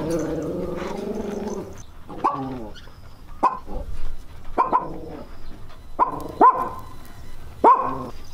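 A dog gives a long, wavering howl-like cry, then barks sharply about seven times, roughly once a second: an agitated reaction to fireworks.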